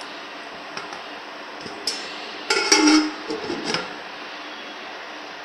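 Glass pot lid with a metal rim being set and shifted on a cooking pot of rice: a few light clicks, then a louder clatter with brief ringing about two and a half seconds in, and a few softer knocks after it, over a steady hiss.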